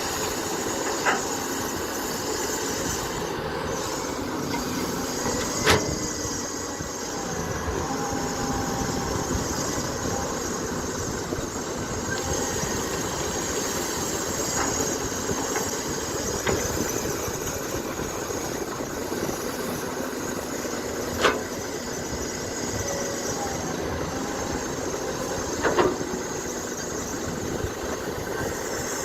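Excavator diesel engine running steadily while digging, with several sharp metal clanks from the bucket and arm.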